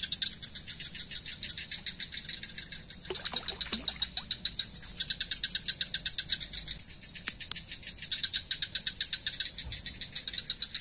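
Night chorus of crickets and other insects: a steady high-pitched trill throughout, overlaid by bouts of a rapid pulsing call that start and stop every few seconds.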